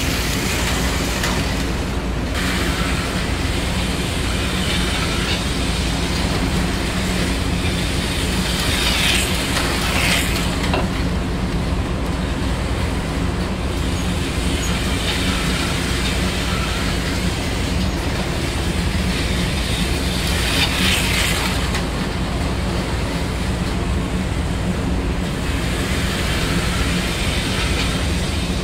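HO scale model passenger train running along the layout track: a steady electric hum with the wheels clattering over the rails. A few times a brighter, higher whir swells up and fades as slot cars race past.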